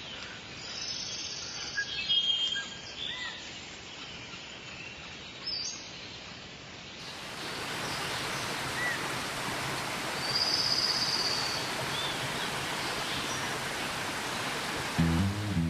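Rainforest birds chirping and calling over a steady background hiss. About halfway through, the hiss becomes louder and denser, with a few more bird calls over it. Strummed acoustic guitar music starts right at the end.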